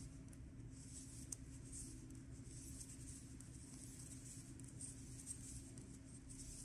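Faint rustle of yarn sliding over wooden knitting needles as stitches are worked, coming and going in soft patches, with one small click about a second in.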